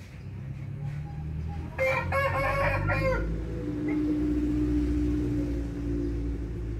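A rooster crowing about two seconds in, the crow trailing into a long held low note.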